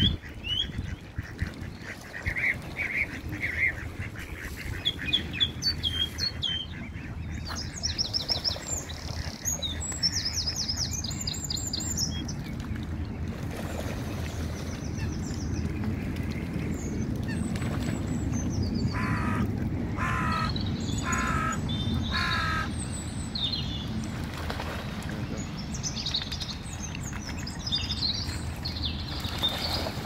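Mallard ducks quacking in short runs, once a few seconds in and again past the middle, with small birds chirping and twittering at a higher pitch in between and near the end, over a steady low rumble.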